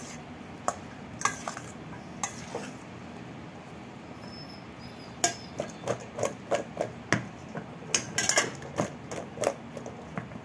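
A metal spoon knocking and scraping against a stainless steel mixing bowl as zucchini sticks are stirred and tossed in olive oil. There are a few separate knocks at first, then a busy run of clinks from about halfway through.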